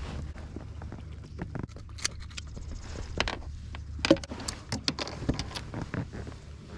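Handling sounds on a kayak deck as a largemouth bass is held by the lip and unhooked: a string of sharp clicks, taps and knocks, the loudest about four seconds in.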